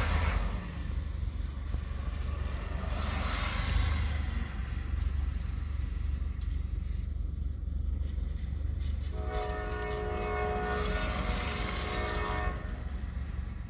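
A locomotive horn sounds one long chord of several tones, starting about nine seconds in and lasting about three and a half seconds. Beneath it runs a steady low rumble, and two passing whooshes come before it, one at the start and one about three seconds in.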